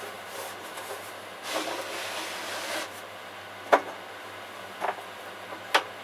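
A tool rubbing and scraping on clay for about a second and a half, then three sharp knocks spaced about a second apart.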